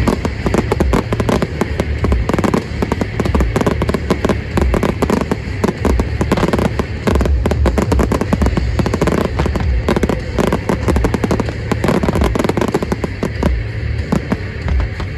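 Aerial firework shells bursting in a dense barrage: rapid bangs and crackling throughout, thinning out near the end.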